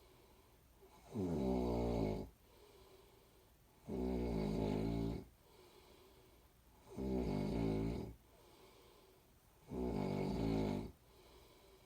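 A person snoring with a steady rhythm. There are four snores about three seconds apart, each lasting a little over a second, with quiet breathing between them.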